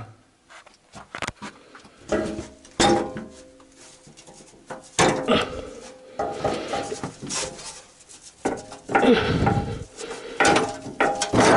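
Metal engine sump guard of a VAZ 2109–2115 clanking and scraping in irregular knocks as it is pushed back by hand to slide it off its mounts.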